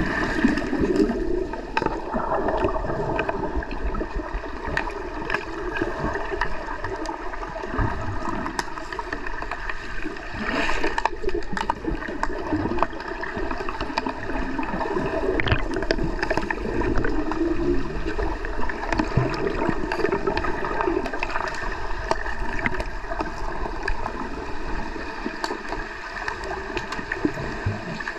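Underwater pool noise heard from below the surface: swirling, bubbling water stirred by players' kicking fins and exhaled air, with many scattered sharp clicks and knocks throughout.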